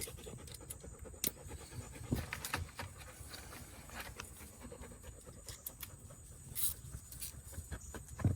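Scattered light clicks and taps of hand-tool work on the car's interior panel screws, with one louder knock about two seconds in and another near the end.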